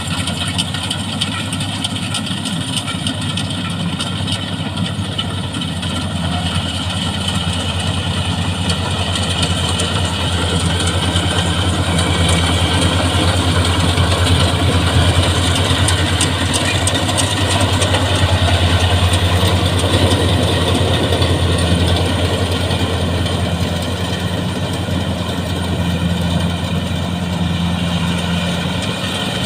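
Rice combine harvester running, a steady engine drone that grows louder through the middle and eases off near the end.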